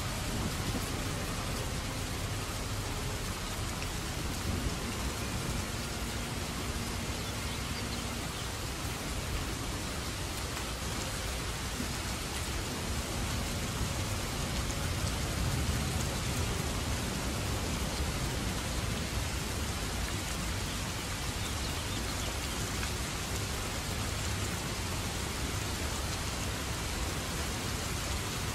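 Steady, dense rain falling, with a low rumble underneath. Faint held low notes of the violin music fade out within the first several seconds, leaving only the rain.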